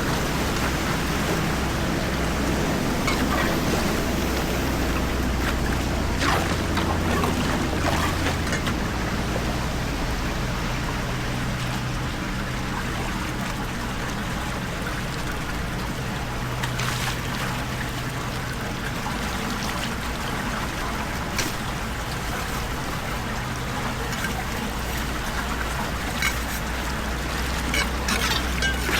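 Floodwater pouring and trickling steadily down a storm drain, with a few scattered knocks.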